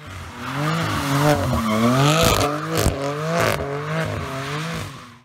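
BMW F82 M4's S55 3.0-litre twin-turbo inline-six, fitted with Akrapovič downpipes and a stainless performance exhaust with 200-cell catalysts, revving up and down repeatedly. Two short rushing bursts come in the middle, and the sound fades in at the start and out at the end.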